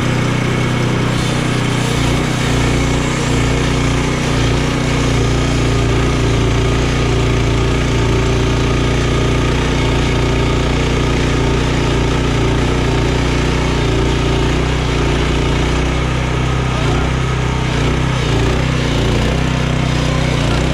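Portable band sawmill's gasoline engine running steadily, with the band blade driven through a Douglas fir log.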